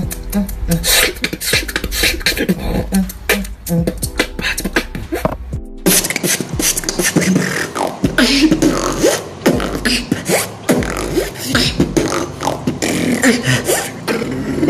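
Vocal beatboxing: a man making drum sounds with his mouth, rapid clicks and snare-like hits in a steady rhythm over a low bass hum. About six seconds in it cuts abruptly to a second beatboxer with a different, busier pattern.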